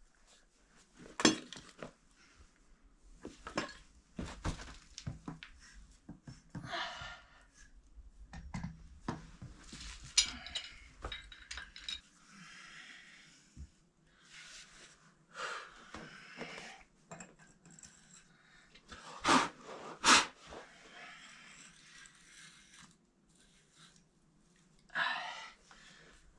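Metal pipe fittings and tools being handled: scattered clinks and knocks, two louder clanks about two-thirds of the way through, with bits of rustling in between, as new fittings are made ready to tighten onto a sand point well pipe.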